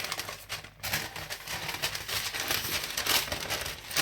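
Parchment paper crinkling and rustling under the hands, a continuous crackle of small clicks.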